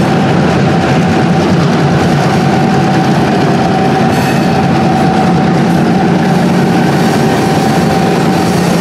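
Two diesel switcher locomotives pulling an ore pellet train run close past with their engines running steadily and a thin steady whine, and the steel hopper cars behind them roll by on the rails.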